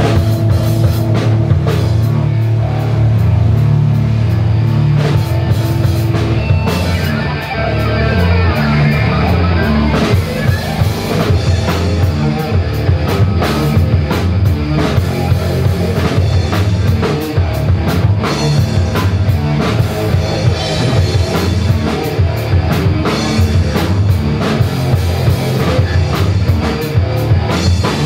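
Live rock band playing: electric guitar, bass guitar and drum kit. Held, ringing chords for about the first six seconds, then a build into a fast, driving drum beat about ten seconds in.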